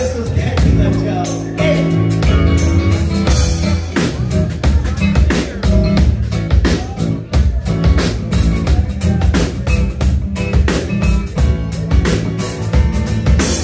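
Live band playing rock music: a strummed acoustic guitar, an electric bass and a drum kit with steady beats, largely instrumental in this stretch.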